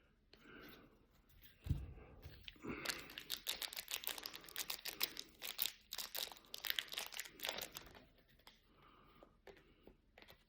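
Trading-card pack wrapper being torn open and crinkled: a dense run of crackling from about three seconds in until about eight seconds, after a soft low thump.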